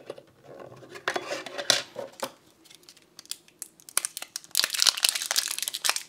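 A few light plastic clicks and knocks at the chime's open battery compartment, then from about four seconds in a long run of plastic packaging crinkling and tearing as the supplied batteries are unwrapped.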